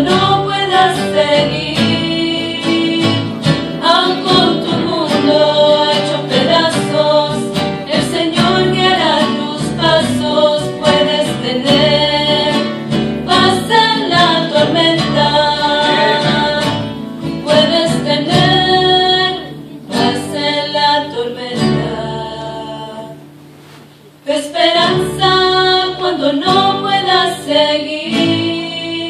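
Female vocal trio singing a Spanish-language hymn into microphones over instrumental accompaniment. The music dies away briefly about 23 seconds in, then the singing picks up again.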